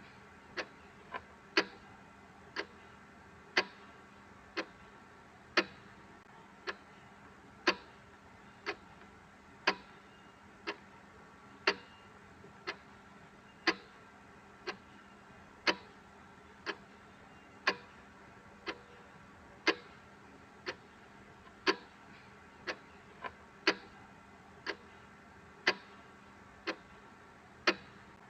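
Mechanical clock ticking steadily, about once a second, with every other tick louder in a tick-tock pattern, over a faint steady background hum.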